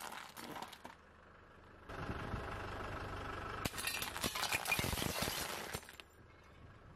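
Glass fluorescent light tubes cracking and crunching to pieces under a car tyre. A short spell of crackling comes at the start, then a low rumble, then a longer run of shattering and crunching from about four seconds in, lasting about two seconds.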